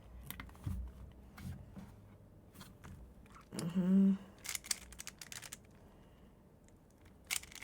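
Irregular plastic clicking and clacking of a springless MoYu RS3M 2020 3x3 speed cube being turned quickly in a timed solve, its loose layers rattling as they turn. A short vocal sound comes about four seconds in.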